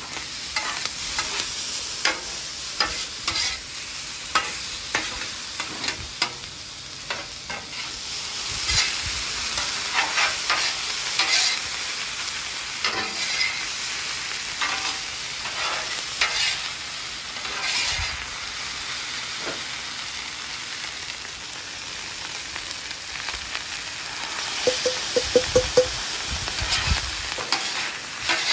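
Shrimp and fried rice sizzling on a hot steel Blackstone flat-top griddle while a metal spatula scrapes, chops and tosses them across the cooktop in repeated short strokes. A quick run of four knocks comes near the end.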